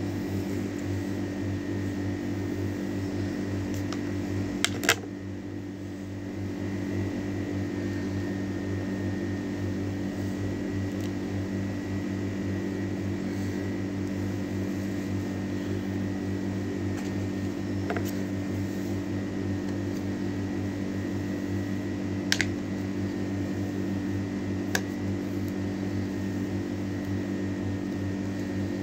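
A small electric motor whirring steadily, like a fan, with a few sharp clicks about five seconds in and again a little past twenty seconds.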